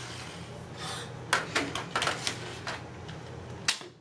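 A string of sharp plastic clicks and knocks, about six over two and a half seconds with the loudest near the end, from a toy foam-dart blaster being handled. A steady low hum runs underneath.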